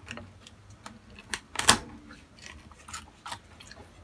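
Dalstrong Gladiator series knife cutting along the backbone of a raw chicken, making irregular crunching clicks as the blade goes through the rib bones, with one louder snap about a second and a half in.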